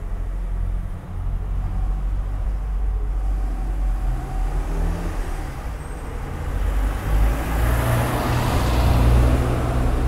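A motor vehicle driving past: a low engine rumble throughout, with engine and tyre noise swelling to its loudest near the end.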